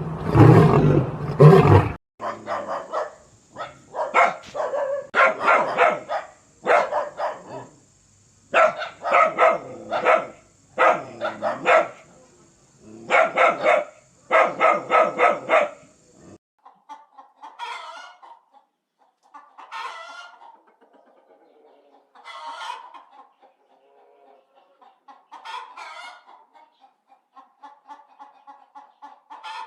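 A lion's roar ends about two seconds in. Then domestic chickens call, clucking and crowing in loud repeated bouts. From about halfway, a quieter run of short calls comes every two to three seconds.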